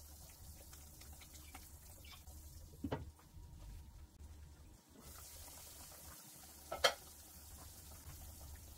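A pot of pork broth with saba bananas and green beans bubbling at a boil: a faint, steady simmer. There are two clinks of cookware, one about three seconds in and a louder, ringing one about seven seconds in.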